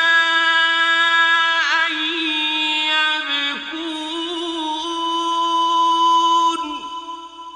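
A man reciting the Qur'an in the melodic, drawn-out mujawwad style. He holds one long note with small ornamental turns, and his voice falls away near the end.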